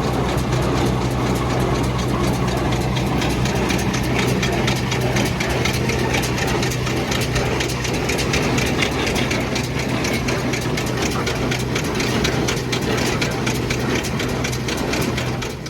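Tractor engine running steadily, driving a John Deere 328 square baler as it bales hay.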